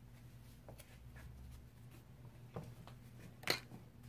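Faint clicks and rustles of small handling, with one sharper click about three and a half seconds in, over a low steady hum.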